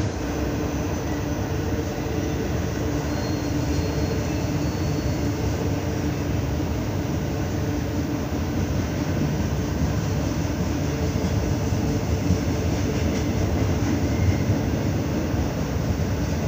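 Norfolk Southern double-stack intermodal freight train rolling past, its loaded well cars' steel wheels running on the rails in a steady, continuous noise.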